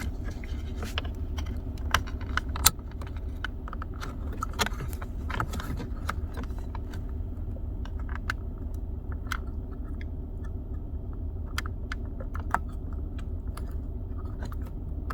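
Scattered clicks and small plastic rattles of the rear climate control unit and its trim panel being pressed and worked loose by hand, with one sharper click between two and three seconds in, over the steady low hum of the running car.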